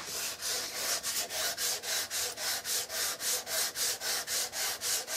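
Sanding block with sandpaper rubbed back and forth over a walnut rifle stock by hand: an even, rasping run of strokes, about four a second.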